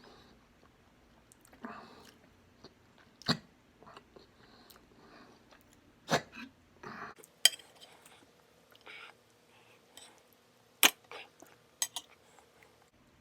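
Close-miked eating of spicy pork adobo: chewing and mouth sounds in short spells, broken by several sharp clinks of dishes, the loudest about three, six and eleven seconds in.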